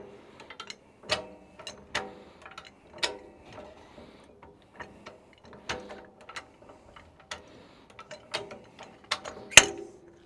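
A high-lift farm jack being worked down, its ratchet mechanism clacking metal on metal with a short ring at each stroke. The clacks come irregularly, roughly one a second, and the loudest is near the end.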